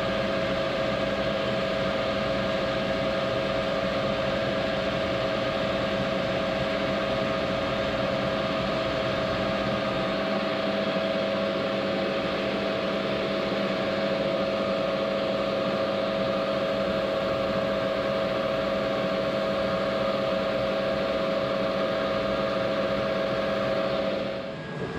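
Metal lathe running at high speed on its fast pulley while turning the taper of an MT3 arbor: a steady whine of a few held tones over an even mechanical noise. It drops away shortly before the end.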